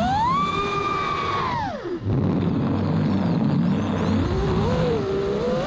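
FPV quadcopter's brushless motors heard onboard: a whine that rises as the throttle is punched, holds, then falls steeply about two seconds in as the throttle is cut. A low, wavering hum follows while the quad coasts, and the whine climbs again near the end.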